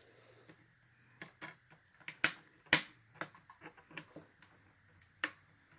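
Sharp clicks and taps of a DVD being pressed back onto the centre hub of a digipak tray. The two loudest come a little past two seconds in, with another near the end.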